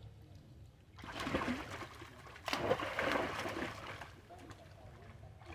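Pool water splashing as long-tailed macaques plunge and swim in it, in two bursts: one about a second in, and a louder one about two and a half seconds in that lasts over a second.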